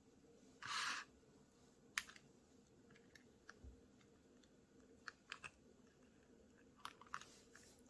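Faint scattered clicks and taps of a plastic pearl bead strand being handled and pressed onto the back of a CD, with a brief rustle about a second in.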